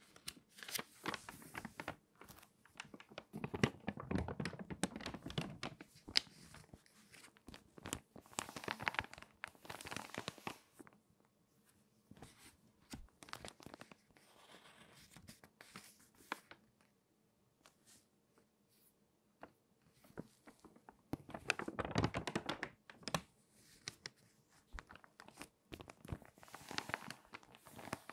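Stiff, water-damaged magazine pages turned by hand, crackling and crinkling. The sound comes in about five bouts of a few seconds each, with short quiet gaps between.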